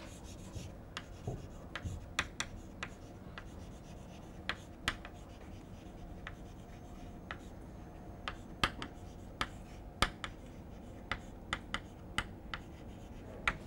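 Chalk writing on a blackboard: faint, irregular sharp taps and short scratches as a line of words is chalked up.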